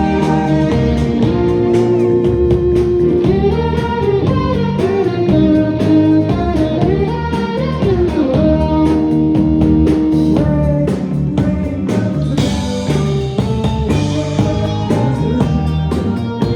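Live rock band playing through a concert PA: electric guitar over a drum kit, with held and sliding melody lines. About ten seconds in, the drums hit harder, with cymbal crashes.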